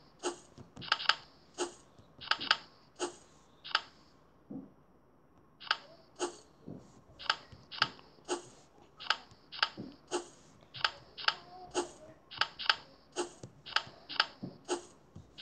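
Card-flip clicks from a tile-matching memory game, one short click for each tile turned over, many in quick succession and often in pairs, with a pause of about two seconds a few seconds in.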